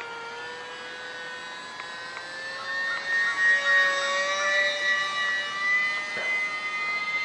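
Micro RC flying boat's motor and propeller whining at a steady pitch, then getting louder and rising slightly in pitch about three seconds in as the throttle is opened.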